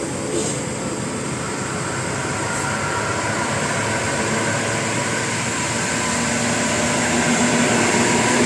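Road traffic noise: a steady rush that grows gradually louder as a vehicle approaches, with a low steady hum joining about six seconds in.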